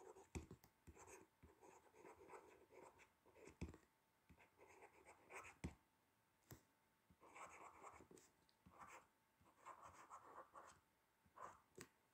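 Faint, irregular scratches and taps of a stylus writing cursive by hand on a tablet.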